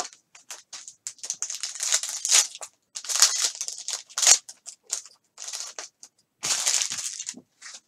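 Foil wrapper of a Contenders football card pack being torn open and crumpled, a run of irregular crinkling and tearing rustles.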